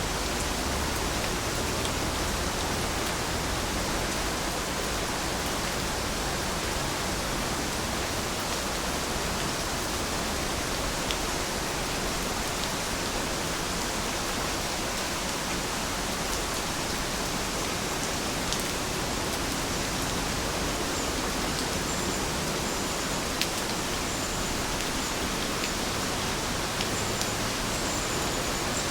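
Steady rain falling, an even hiss, with a few sharper drop ticks now and then.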